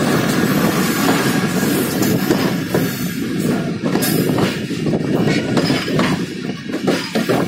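Jaffar Express passenger train running, its wheels rolling on the rails, heard from an open coach window as a steady loud rumble.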